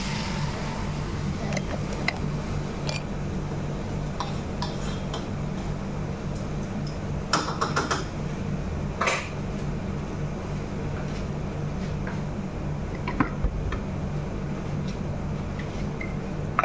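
Metal cookware on a gas stove clinking and knocking now and then, with a cluster of knocks about halfway through, over a steady low hum.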